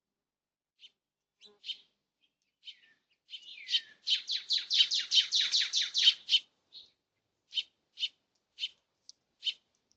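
Small songbird calling: scattered sharp chip notes, then a fast run of about a dozen notes about four seconds in, then single chips about half a second apart.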